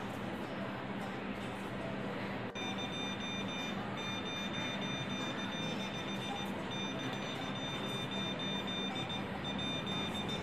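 Breadboard buzzer in an Arduino Morse SOS circuit sounding a steady high-pitched tone from about two and a half seconds in, held for long stretches with a few brief breaks, over a steady background hiss.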